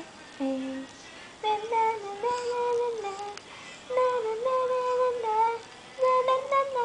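A woman singing a wordless tune, in short phrases of held, steady notes with brief pauses between them.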